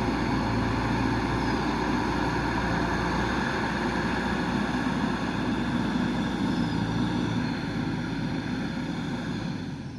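JCB 3DX backhoe loader's diesel engine running steadily, fading out over the last couple of seconds.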